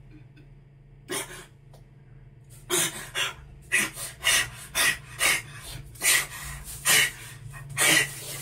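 A man gasping and panting in heavy, harsh breaths: one near a second in, then a quick run at about two breaths a second, acted as a choking fit.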